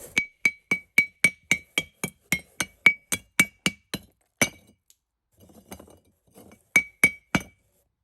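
Pieces of Tosa binchotan (ubame oak charcoal) tapped together, each strike giving a bright, short metallic ring: a quick run of about fifteen strikes at some four a second, one more after a pause, then three more near the end. A clear ring like this is the sign of dense, well-fired binchotan and is the usual test of its quality.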